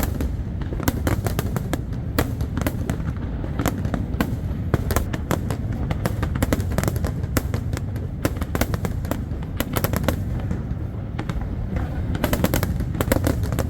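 Aerial fireworks going off in rapid succession: many sharp bangs and crackles over a continuous low rumble, with a dense flurry of cracks near the end.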